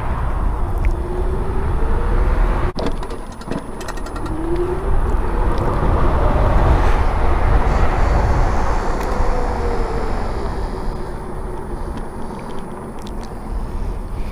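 Riding noise from an Onyx RCR electric bike on the move: heavy wind rumble on the microphone with the motor's faint whine rising and falling as speed changes. There is a short run of knocks about three seconds in.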